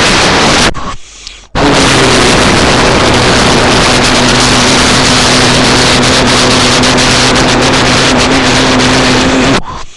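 Rally car engine held at steady high revs under heavy, hissing road and wind noise. The sound drops away suddenly about a second in, comes back loud, and cuts off again near the end.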